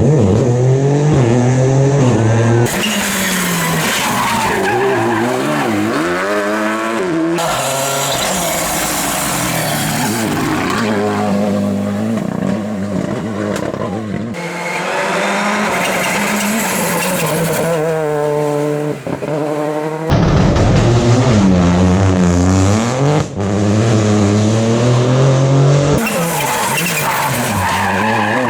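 Rally cars at full attack, engines revving hard and falling back through gear changes, with tyre squeal. The sound cuts abruptly from one car to another every few seconds.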